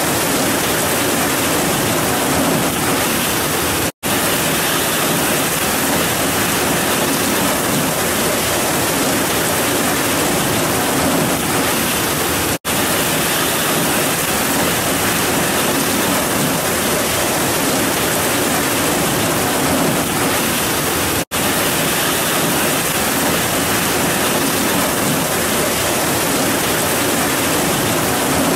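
Heavy rain pouring down, a dense even hiss, broken three times by split-second dropouts to silence.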